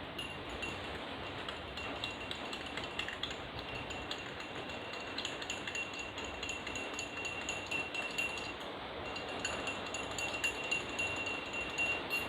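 A spoon stirring honey into ginger water in a drinking glass. It clinks repeatedly against the sides, and the glass rings on one steady note, with a brief pause about two-thirds of the way through.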